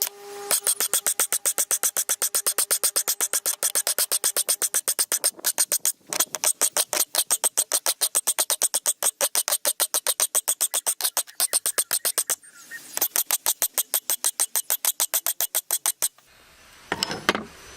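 Hand file rasping along the steel cutting edge of a Bosch Rotak 320 lawnmower blade in quick, even strokes, about six a second, sharpening a blunt, worn edge. The filing pauses briefly twice and stops shortly before the end, followed by a single knock.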